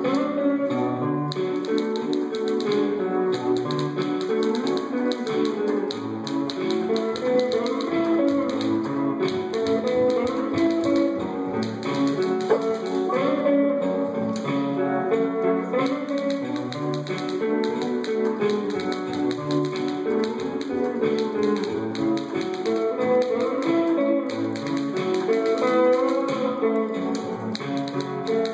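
Music led by a plucked string instrument, with a steady, fast run of sharp clicks over it.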